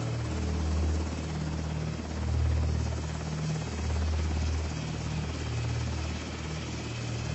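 Military helicopter running close by, a steady rotor and turbine din with a deep throb that swells and eases every second or two.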